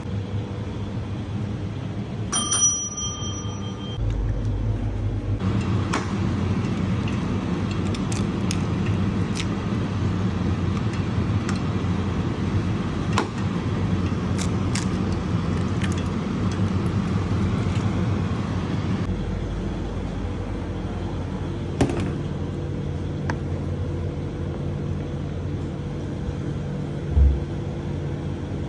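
Steady drone of commercial kitchen ventilation, with scattered clicks and knocks of pans and utensils and a short electronic beep a couple of seconds in.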